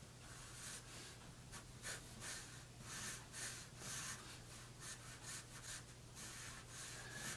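Graphite pencil drawing on paper: faint, repeated short scratching strokes.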